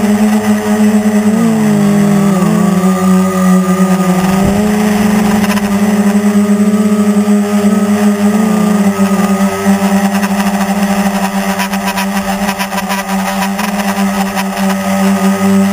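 Quadcopter's electric motors and propellers buzzing steadily as heard from on board in flight, the pitch dipping and rising briefly a few times as the throttle shifts.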